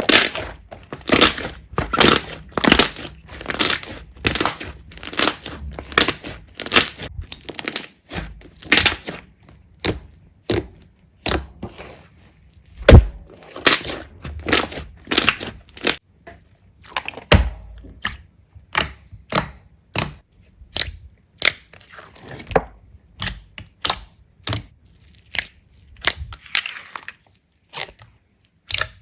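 Crunchy slime being pressed and squished, giving a quick run of crisp crackling pops about two a second, with a few short pauses.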